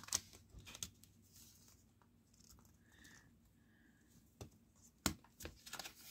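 Faint handling of a paper CD sleeve: scattered light taps and short rustles as it is turned over and fingered, a few louder ones near the end.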